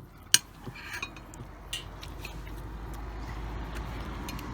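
Tableware being handled: one sharp click about a third of a second in, then a few lighter clinks and taps, over a low, even rumble that grows toward the end.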